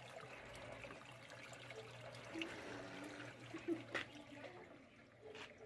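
A stream of water pouring from a PVC pipe fitting into a plastic barrel filter, splashing onto the water and broken clay tiles inside. Two sharp knocks about four seconds in, and the splashing fades near the end.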